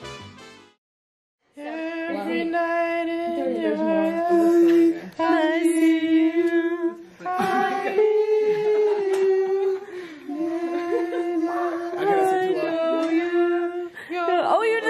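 A person humming a tune, with long held notes in about four phrases of a few seconds each. Before it, the tail of brass music fades out, followed by a second of silence.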